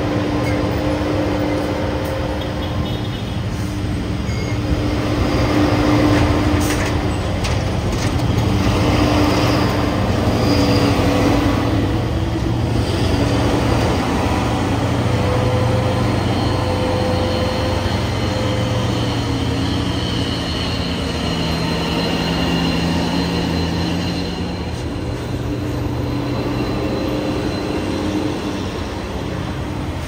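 Heavy trucks' diesel engines running on a steep hill road. The engine note shifts slowly in pitch and loudness, swelling about six and eleven seconds in.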